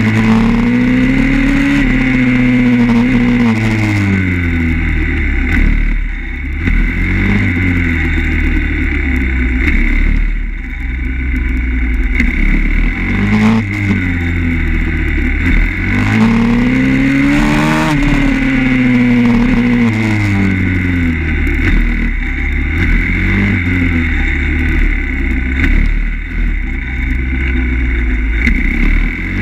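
Pitbike's small single-cylinder four-stroke engine heard onboard while it is ridden around a tight cone course. The revs climb and then fall away again and again as the bike accelerates between cones and rolls off for each corner.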